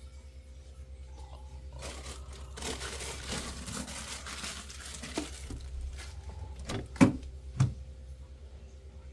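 Plastic crinkling and rustling for a few seconds as things are handled while the refrigerator's vegetable compartment is emptied, then a few hard knocks, the loudest about seven seconds in.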